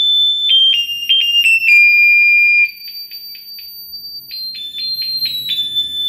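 Battery-powered electric bicycle bell sounding its electronic siren: loud, shrill, rapidly pulsing beeps that step between pitches. About two and a half seconds in it drops to a quieter pulsing tone, and it turns loud again a little after four seconds.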